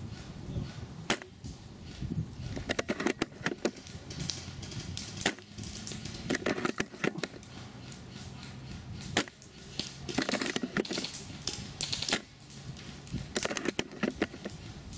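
Several short bursts of rapid clicks from airsoft guns firing, over a low steady hum.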